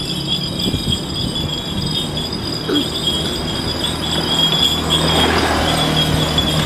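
Cycle rickshaw (becak) rattling and jingling as it rolls over paving blocks, with a motor scooter's engine passing close by about five seconds in.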